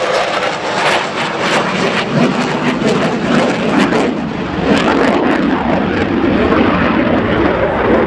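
Loud jet noise from a Polish Air Force F-16C's single turbofan engine as the jet flies its display. It crackles through the first few seconds, and a deeper rumble grows from about two seconds in.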